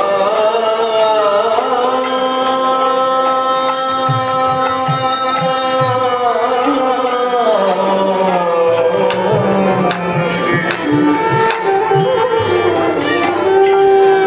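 Bengali devotional kirtan music. A male voice, violin and bamboo flute carry long held melody notes that slide between pitches, over short strokes on a khol drum.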